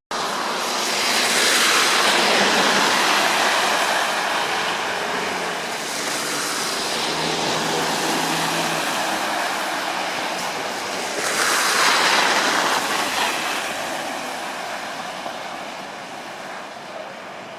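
Vehicles passing on a wet, slushy road, their tyres hissing with spray. The hiss swells twice, about a second in and again around eleven seconds, then fades away.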